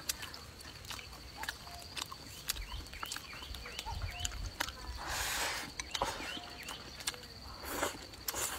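Close-miked eating: wet chewing with many small mouth clicks, and two longer slurps, one about five seconds in and one near the end.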